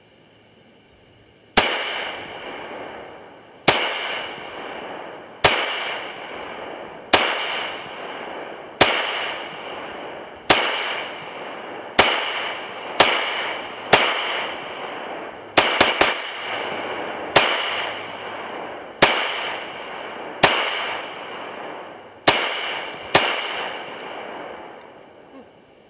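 Ruger P95 9mm semi-automatic pistol fired in slow, steady succession, about sixteen shots one to two seconds apart with two coming close together near the middle, each shot followed by an echo that rings and dies away.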